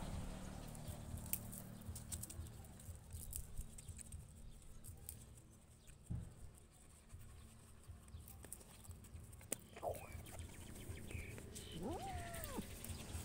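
A puppy whimpers briefly, then near the end gives a longer whine that rises and falls in pitch, over faint scattered clicks and scuffs.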